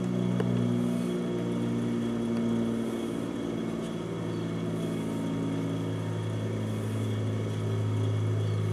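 Steady low machine hum, an even drone with a few overtones above it and no clear change in pitch.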